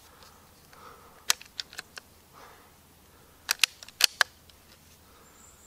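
Sharp mechanical clicks from a scoped air rifle as it is handled and worked at the shoulder: a single loud click about a second in, followed by a few fainter ones, then a quick run of four or five louder clicks about three and a half seconds in.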